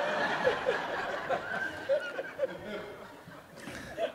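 Audience laughing at a punchline, many voices chuckling at once, the laughter dying away over a few seconds.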